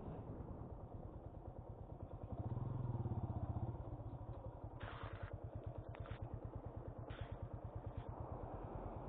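Motorcycle engine running under load on an uphill climb, its rapid even firing pulses plainly heard, swelling for about a second from two and a half seconds in. A few short hissing bursts of wind on the microphone come through in the second half.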